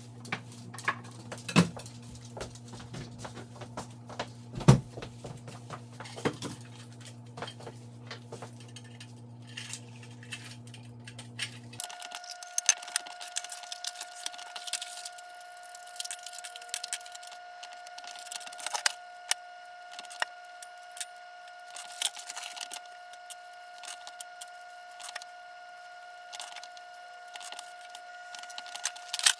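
Small hard objects clinking and clattering as kitchen things are handled and cleaned, over a steady hum. About twelve seconds in the hum changes abruptly from a low tone to a higher one.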